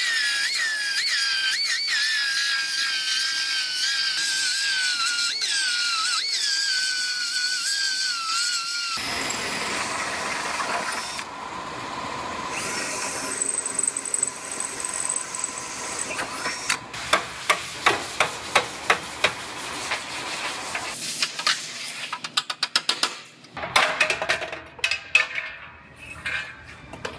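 Belt file grinding into the steel frame rail, a high whine that dips and jumps as it bites and lets off. About nine seconds in it gives way to a cordless drill boring through the sheet-metal bracket, with a run of regular clicks and then irregular scraping and short bursts of drilling.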